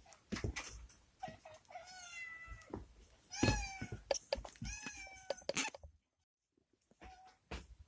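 Domestic cats meowing several times in a row, one longer drawn-out meow and shorter ones, with sharp clicks and rustles between: cats begging for a treat.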